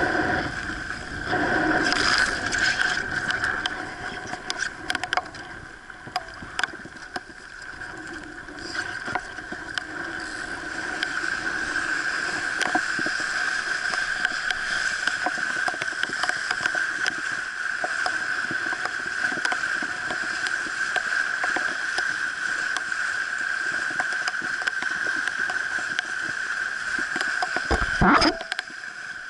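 Sea Hopper sailing dinghy under way in strong wind: water rushing and splashing along the hull, with a steady high-pitched tone and scattered knocks. Near the end comes a single loud knock with a falling sweep.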